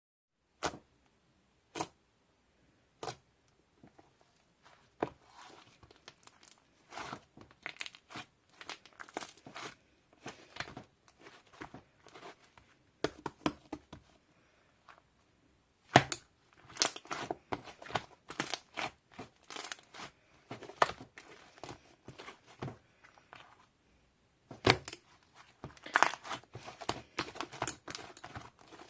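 Irregular crinkling and tearing noises with scattered sharp taps and clicks, denser and louder in the second half.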